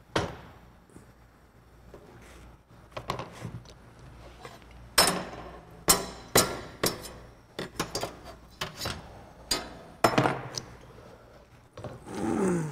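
Pots, pans and utensils clattering and clinking on a stove and counter during cooking: a string of sharp knocks and clinks, busiest through the middle, with a short sound falling in pitch near the end.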